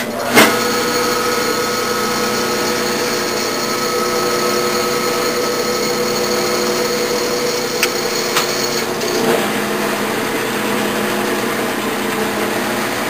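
Metal lathe starting with a sharp clunk about half a second in, then running steadily with a motor-and-gear hum while a carbide boring bar takes a cut inside a sand-cast cylinder bore.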